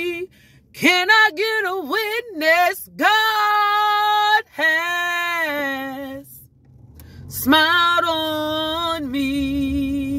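A woman singing a gospel song unaccompanied, with long held notes and a few quick runs of ornament about a second in. There is a short breath-break past the middle before she takes up another long held note.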